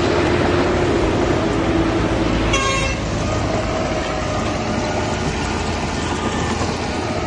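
Heavy earthmoving machinery engines (dump trucks and a bulldozer) running steadily, with one short vehicle horn toot about two and a half seconds in.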